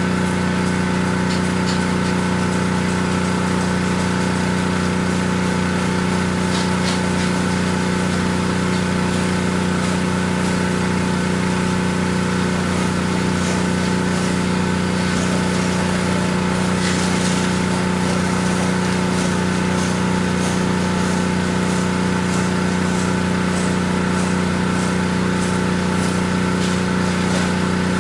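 Pressure washer's gas engine and pump running steadily at constant speed, with the hiss of water spraying.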